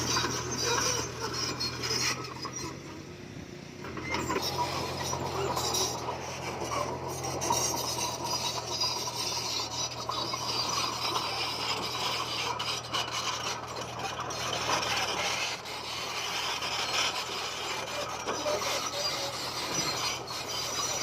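Komatsu bulldozer at work: its engine runs steadily under a continuous grinding, scraping noise of stone being pushed, which eases briefly about two to four seconds in.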